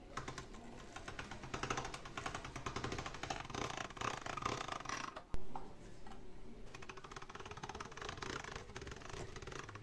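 Hand-cranked steel pasta machine rolling very dry egg pasta dough through its rollers, giving a long run of rapid fine clicking from the crank and gears. One sharp knock comes about halfway through.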